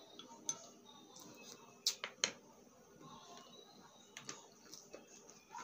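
Crispy fried egg chicharon chips crunching as they are eaten and handled: a few short sharp crunches, the loudest two close together about two seconds in.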